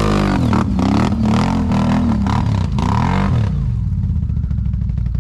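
Can-Am Renegade ATV's V-twin engine revving up and down several times under load on a steep, muddy climb. The revving drops away about three and a half seconds in, leaving a low rumble.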